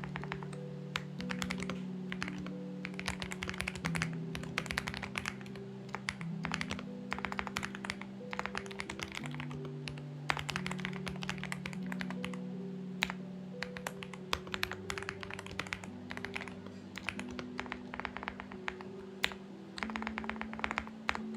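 Typing on a Xinmeng X98 mechanical keyboard: clicking keystrokes in quick, irregular runs with short pauses. Underneath is soft background music of slow, sustained chords.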